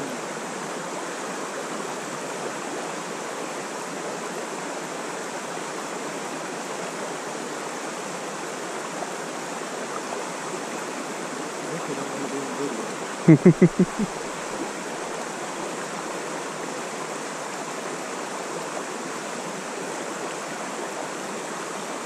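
Mountain trout stream running: a steady rush of water. A little past the middle, a brief loud sound of a few quick pulses cuts in over it.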